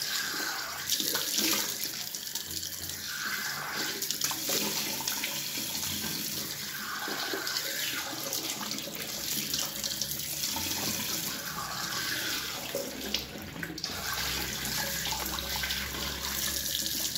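Water running from a tap into a sink, with uneven splashing as hands scoop it up and splash it onto the face.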